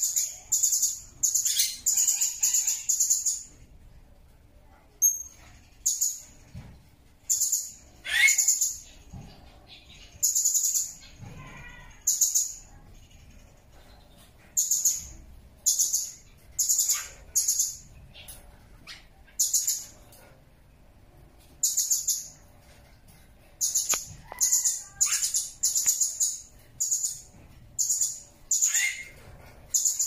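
Blue-crowned hanging parrot (serindit) calling: short, very high-pitched chirps repeated in quick runs of several notes, with short pauses between the runs.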